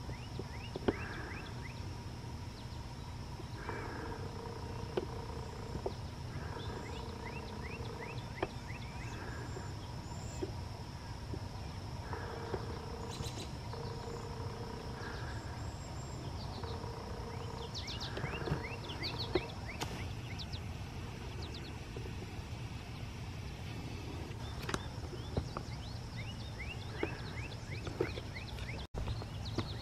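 Steady low rumble, with birds chirping and calling over it. Short calls repeat every second or two, and quick falling chirps come in clusters.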